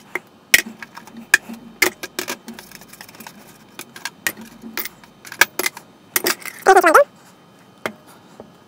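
Small brass gears, washers and other metal fishing-reel parts clinking as they are dropped one by one into a plastic tub, a string of sharp clicks. A brief rising squeak near the end is the loudest sound.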